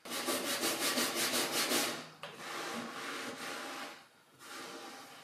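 A small hand tool rasping against old wood in quick back-and-forth strokes. The first run is fast, at about six strokes a second, and stops briefly about two seconds in. Slower strokes follow, with another short pause near the end before a quieter run.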